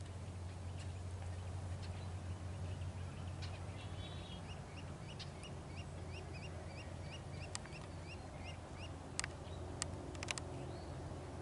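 A bird calling a quick, even series of short rising notes, about two a second, for several seconds, over a steady low rumble. A few sharp clicks sound near the end.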